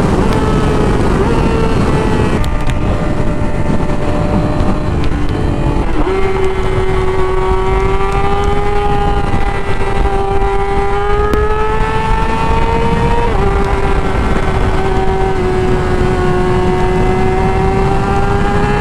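Yamaha R6 inline-four sport-bike engine running at high revs while riding, over heavy wind rush. Its pitch jumps up sharply about six seconds in and drops suddenly about thirteen seconds in, gear changes, then climbs slowly again as it pulls.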